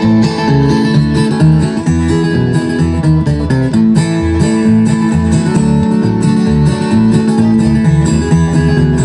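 Live bluegrass band playing an instrumental passage: quick picked and strummed guitar and other plucked strings over a steady bass line, with no singing.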